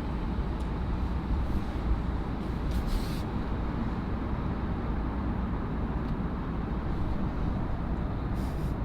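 Steady low rumble of a vehicle in motion, heard from inside, with no speech over it.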